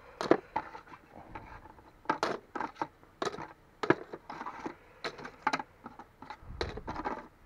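Small laptop wireless cards (Wi-Fi and Bluetooth circuit boards) clattering as they are swept by hand off a steel scale pan and dropped into a plastic tub of similar boards: a loose, irregular series of clicks and clacks.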